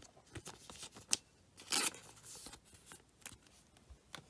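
Football trading cards being handled and flipped through by hand: soft clicks and taps of card on card, with a brief sliding swish just under two seconds in.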